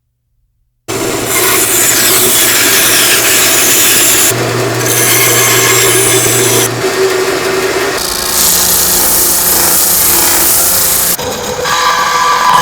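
A power sander or grinder abrading material: a loud rough hiss over a steady motor hum. It starts abruptly about a second in and changes pitch and character several times.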